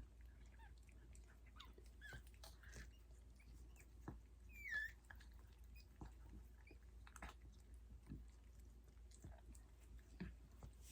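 Mother Yorkshire terrier licking and chewing at her newborn puppy: faint, scattered wet smacking and clicking. There is a brief high squeak, likely from the puppy, about five seconds in.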